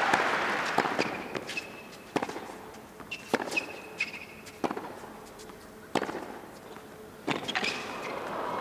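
Tennis rally on a hard court: a string of sharp racket hits and ball bounces, roughly one every half second to a second, with short high squeaks of tennis shoes. A crowd murmur at the start dies away after the serve.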